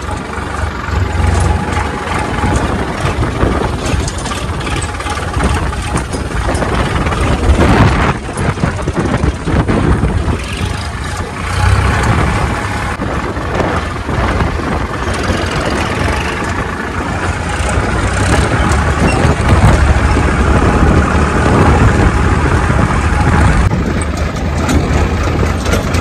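Diesel tractor engine running steadily as the tractor drives, heard from the driver's seat close to the exhaust stack.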